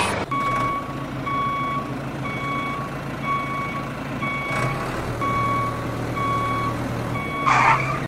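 Vehicle reversing alarm beeping steadily about once a second over a low engine hum, as the mini tractor backs up with its loaded trailer. A short louder chirp sounds near the end.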